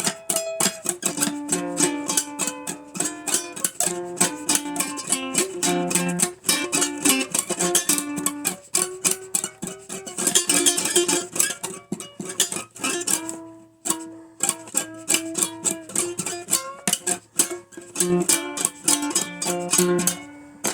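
A plucked acoustic string instrument playing an old-time blues tune, with quick picked notes and strums. It breaks off briefly about two-thirds of the way through.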